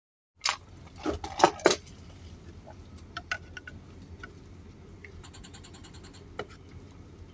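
Cookware and utensils being handled: a cluster of sharp clicks and knocks about half a second in, then scattered lighter clicks and a quick rattle, over a low steady hum.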